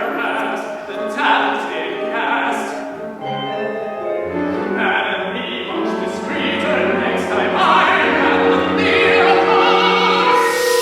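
Operatic singing with instrumental accompaniment, as in a staged opera. A low line joins about four seconds in, and a held note swells near the end.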